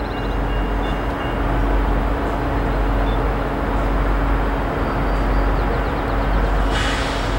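CSX diesel locomotive approaching slowly, its engine running with a steady low drone over the rumble of rolling wheels; a brief hiss about seven seconds in.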